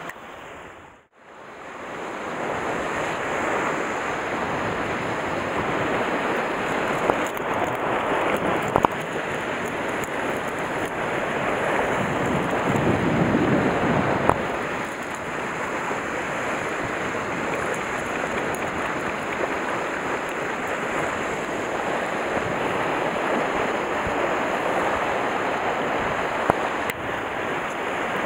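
Sea surf washing against a rocky shore: a steady rushing wash, with wind on the microphone. The sound drops almost to nothing about a second in, then returns and swells briefly around the middle.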